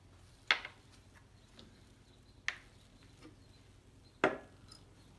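Small glass beakers and a metal solvent bottle set down one after another on a tabletop: three sharp knocks about two seconds apart, the last the loudest, with a few faint taps between.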